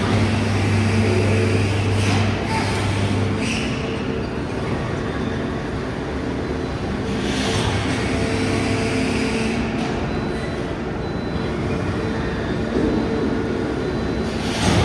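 5000-tonne forging press running: a steady mechanical hum with a low drone that stops a few seconds in, broken by several short bursts of hissing.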